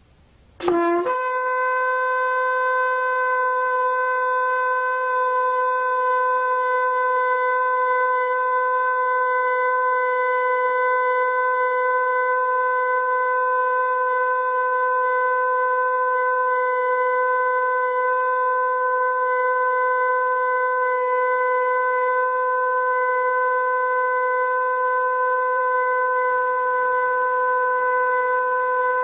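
A shofar (ram's horn) sounds one long, steady blast that starts with a quick upward slide about a second in and is held unbroken on a single pitch, with faint extra tones joining near the end.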